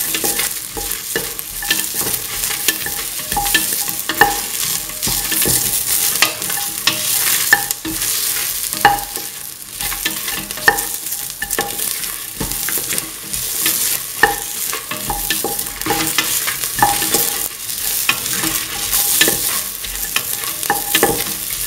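Chopped onion, garlic, fennel seeds and red and green chillies sizzling in oil in a stainless steel pan, stirred with a spatula that scrapes and knocks against the pan every second or two, the pan ringing briefly at the harder knocks.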